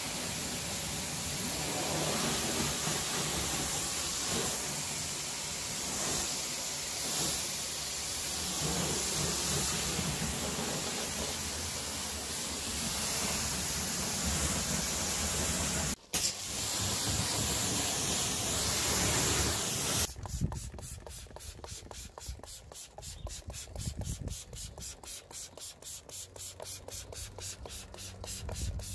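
Pressure washer jet spraying water against a car's bodywork and wheel, a loud steady hiss. About two-thirds of the way through it gives way abruptly to a trigger spray bottle being pumped fast, an even run of short spritzes, about four or five a second.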